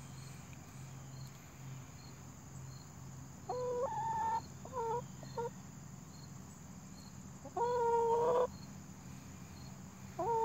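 Hen vocalizing: a few short pitched calls about three and a half to five seconds in, then one longer drawn-out call near eight seconds.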